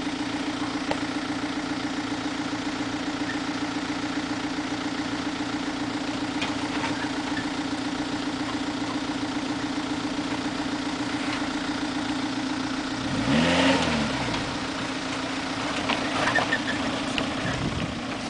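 Suzuki Sierra 4WD engine running steadily at low revs as the vehicle crawls down a rock ledge. About two-thirds of the way through comes a short, louder burst with a rise and fall in pitch and a crunch, followed by a few sharp knocks.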